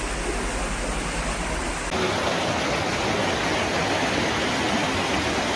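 Floodwater rushing in a steady roar of water noise, with an abrupt change about two seconds in to a louder, fuller rush.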